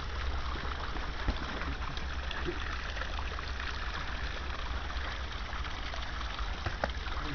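Steady rushing noise of wind on the camera microphone, with a deep rumble. A sharp knock comes about a second in and a fainter one near the end.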